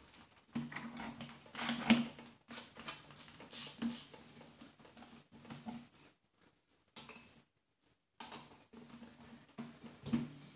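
Faint handling sounds: irregular light knocks, clicks and scrapes as a drill's chuck is fitted onto a blender shaft beneath a plastic jar and wooden board.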